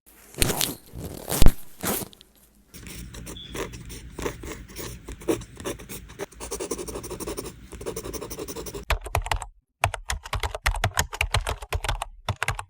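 A few sharp knocks, then steady scraping and scratching for about six seconds, then rapid clicking of typing on a keyboard over the last few seconds.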